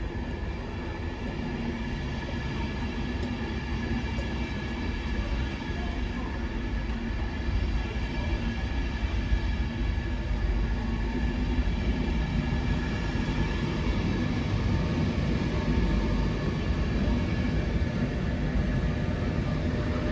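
LNER InterCity 225 electric train (Class 91 locomotive with Mark 4 coaches) arriving at the platform, its electric hum of several steady tones growing gradually louder.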